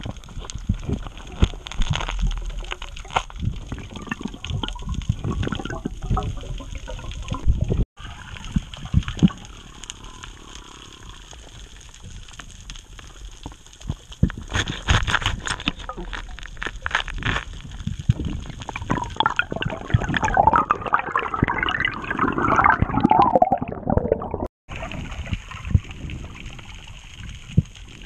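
Muffled underwater sound picked up through a camera housing: water swishing with scattered clicks and knocks as a metal octopus hook probes among rocks, and a stretch of bubbling gurgle about two-thirds of the way through.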